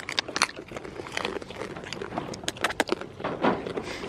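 Irregular close rustling and crackling clicks as goats nose and press against the handheld camera.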